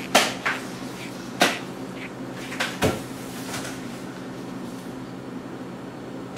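Kitchen cabinet door banging: four sharp knocks in under three seconds, the last two close together, over a steady low hum.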